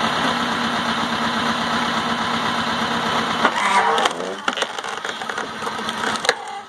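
Tractor-PTO-driven hydraulic log splitter running under load as its ram forces a log through a four-way wedge, the tractor engine and pump giving a steady hum. About three and a half seconds in the sound changes, and the wood gives sharp cracks as it splits, with another loud crack near the end.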